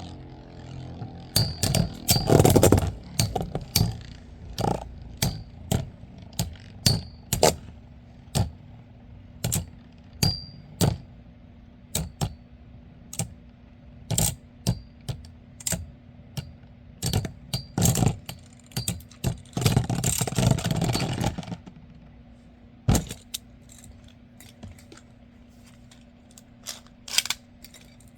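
Metal Beyblade spinning tops clashing in a stadium: a long string of sharp metallic clicks and knocks, some leaving a brief high ring, with two flurries of rapid collisions, one about two seconds in and one about twenty seconds in.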